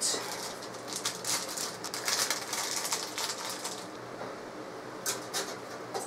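Rustling and a quick run of light clicks and rattles as a motherboard I/O back plate is handled and fitted into the rear of a steel PC case. The clicks come thickest in the middle and again briefly near the end.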